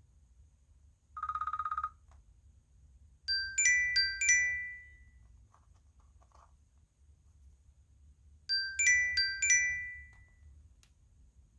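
iPhone 11 Pro ringtones: a short, fast-trilling ring about a second in, then a bright phrase of quick high chiming notes that plays twice, about five seconds apart.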